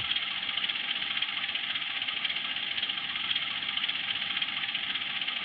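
Sound decoder (ESU LokSound) in a 1:76-scale CC 201 model locomotive playing a GE 7FDL 16-cylinder diesel engine sample at a steady idle through the model's small speaker, with little low end.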